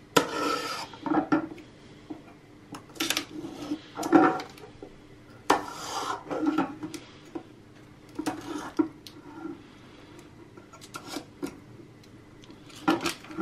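A small knife blade scraping and cutting along the plastic frame of a B&G Neo 8 planar-magnetic driver to free its glued foil diaphragm. It comes as a series of short, irregular scrapes and clicks.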